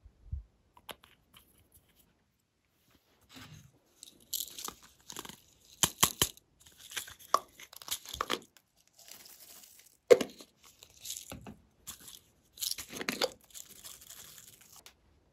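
Small plastic bottles and pots handled by hand, with irregular sharp clicks and crinkly rustling as sequins and glitter are shaken out onto slime.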